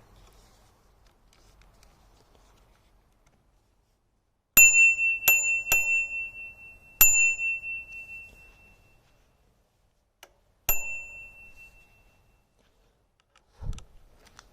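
All-metal Crane E-Ne bicycle bell rung with its striker: three quick dings, a fourth a moment later, then a fifth after a pause, each ringing on one clear high tone that fades over a second or two. A short low thump comes shortly before the end.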